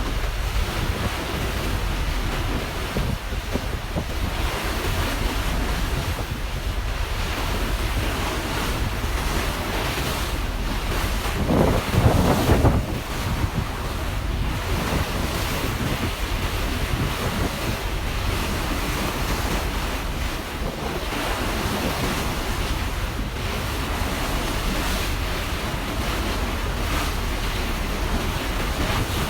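Wind buffeting the microphone over water rushing past a moving ferry, a steady noise with a deep low rumble. It swells louder briefly near the middle.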